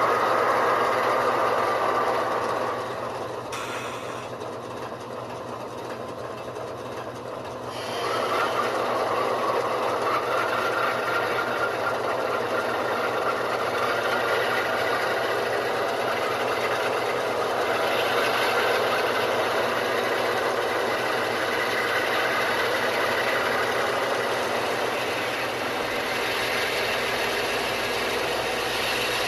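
HO-scale model locomotive's ESU LokSound decoder playing a GE diesel prime mover sound through small speakers, running steadily. It drops lower about three seconds in and comes back up about eight seconds in.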